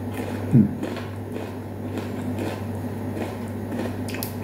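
Biting into and chewing a firm unripe apricot, with a short low thump about half a second in, over a steady low hum.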